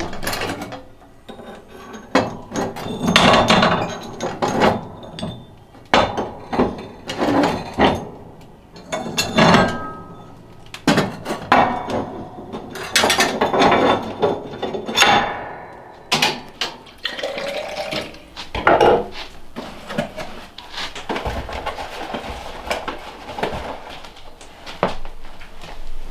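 Cookware and utensils being handled: an irregular string of knocks, clinks and clatters of pots, pans and cutlery.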